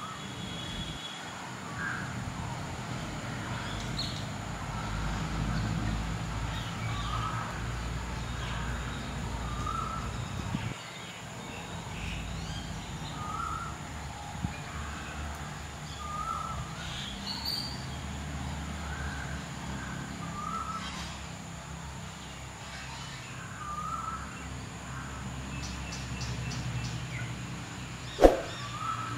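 A bird calling outdoors, a short note repeated every second or two, over a low background rumble. A single sharp knock near the end.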